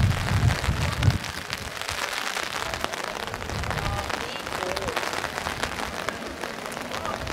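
Steady rain falling on a wet cobbled street, an even hiss dotted with many small drop ticks, with a few low muffled thumps in the first second.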